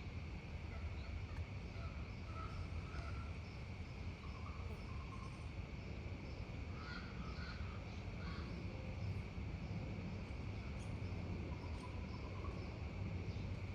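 Outdoor neighborhood ambience: a steady low rumble under a constant high insect drone, with scattered short bird calls.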